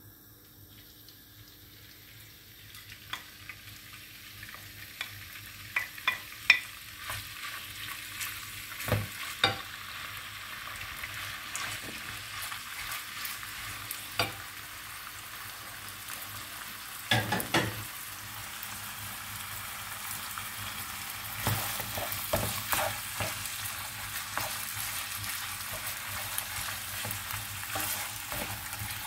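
Diced meat sizzling in hot olive oil in a frying pan, the sizzle building over the first few seconds after the meat goes in. A wooden spoon knocks and scrapes against the pan as the meat is stirred, in clusters of sharp taps.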